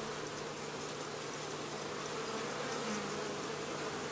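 Many honeybees buzzing together in a steady, even hum around an open hive.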